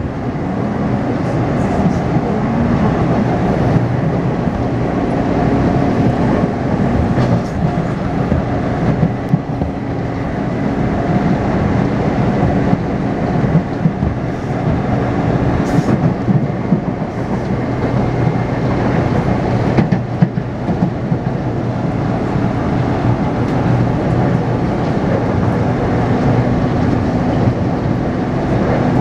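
Taipei Metro C301-type train with retrofitted propulsion running along the track: steady wheel and running noise with faint steady tones from its inverter drive, which the uploader calls an abnormal noise.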